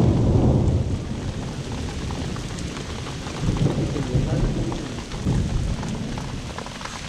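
Heavy rain with thunder: a low rumble, loudest in the first second and swelling again about halfway through, over the steady hiss of rain and scattered drop taps.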